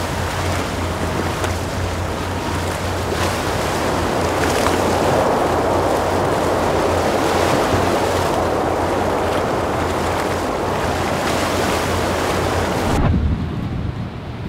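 Surf and breaking waves with wind buffeting the microphone, over a steady low hum. The sound swells through the middle, and near the end the high hiss cuts off suddenly, leaving a duller rumble.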